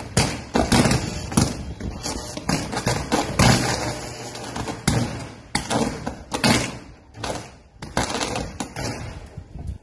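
Gusty wind buffeting the phone's microphone in irregular blasts, rising and falling every second or so.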